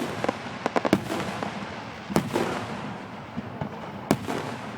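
Fireworks going off: a quick run of sharp crackling pops in the first second, then two loud bursts about two seconds apart, with a steady crackle in between.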